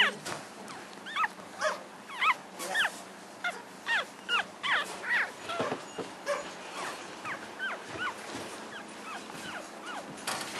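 Week-old American Cocker Spaniel puppies squeaking and whimpering: a quick run of short, high squeals, a couple a second, growing fainter in the second half.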